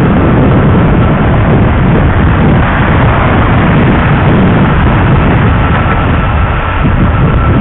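Loud, steady wind rumble on the microphone mixed with road traffic noise, recorded while riding an electric bike.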